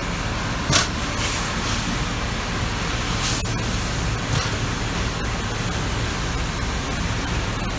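Steady hiss and hum of a powered-up Amada RG-35 hydraulic press brake, its 3 hp pump motor running while the ram stands still. A brief, louder hiss comes a little under a second in.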